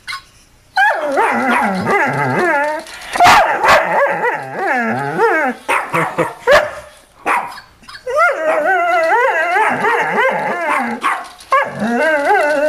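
A Doberman whining and howling in long runs of wavering pitch, starting about a second in. It breaks off for a couple of seconds midway, where a few short, sharp sounds come, then starts again.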